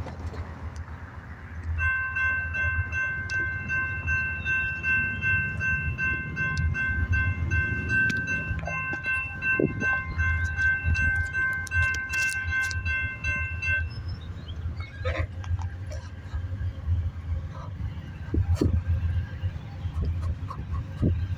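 Norfolk Southern double-stack freight train passing behind a rebuilt diesel locomotive: a continuous low rumble of engines and wheels. A bell rings steadily over it from about two seconds in until about fourteen seconds in.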